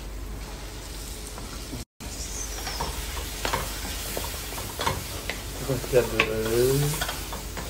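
A wooden spatula stirring and scraping mashed potato through a sizzling tomato-onion masala in a metal pot on a gas burner: a steady sizzle with repeated scraping strokes. The sound breaks off briefly about two seconds in. A short pitched sound comes about six seconds in.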